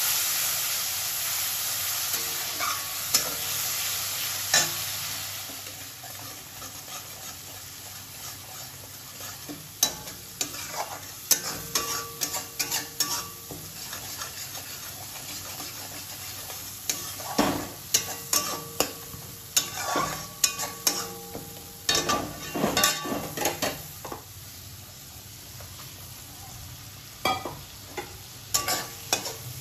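Masala paste sizzling in hot oil in a metal kadai, loud at first and dying down after about five seconds. Then a flat metal spatula stirs and scrapes the paste around the pan in many quick, clattering strokes.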